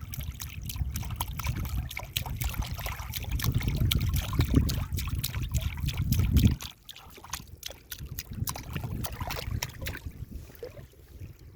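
Stream water trickling and splashing over stones, a steady patter of small splashes. A heavy low rumble runs underneath and cuts off suddenly about two-thirds of the way in, after which the trickle continues more thinly and fades near the end.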